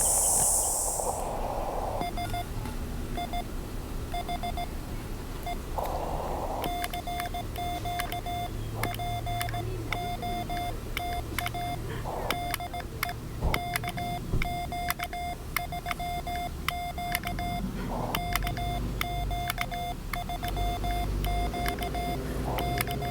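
Morse code (CW) from an amateur radio transceiver: a single steady tone keyed in short and long elements. It starts about two seconds in, over receiver hiss and scattered clicks.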